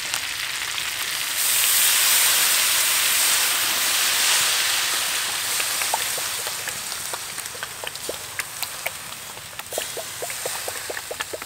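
Chicken legs frying in hot oil in a steel wok, sizzling. The sizzle swells about a second and a half in and stays loud for a few seconds, then settles into a softer hiss with scattered crackling pops.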